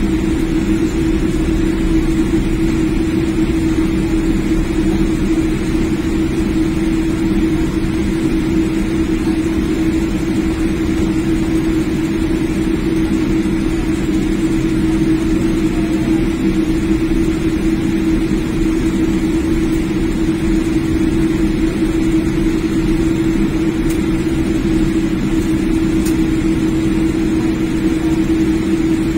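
Steady jet airliner cabin noise while taxiing: the jet engines and cabin air make an even drone, with a constant low hum. The level does not rise, so this is not yet the takeoff roll.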